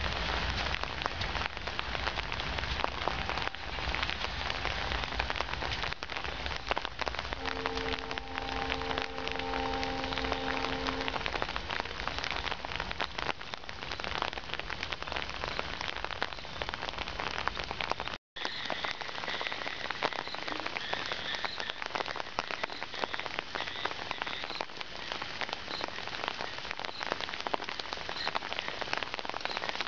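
Steady rain pattering. A distant train horn sounds one steady, several-toned blast for about three and a half seconds, about a quarter of the way in. The sound cuts out for an instant about two-thirds through.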